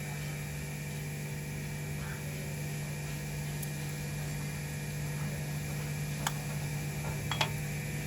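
Steady machine hum on one low, unchanging pitch, with two light clicks near the end.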